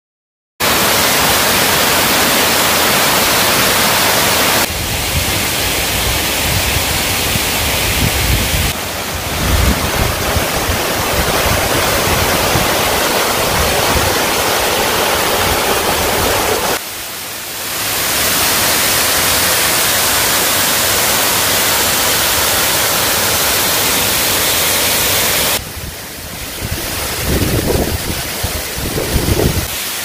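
Waterfall rushing loud and steady, a dense hiss of falling and cascading water that starts about half a second in and changes abruptly in tone several times. Bursts of low rumble come twice, about a third of the way in and near the end.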